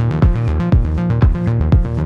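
Background electronic dance music: a steady kick drum at about two beats a second under sustained synth chords.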